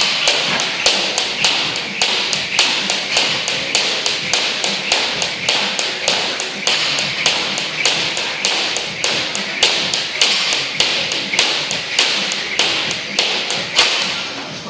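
Fast, evenly spaced sharp taps, about three a second, in a steady unbroken rhythm that starts suddenly and fades out near the end.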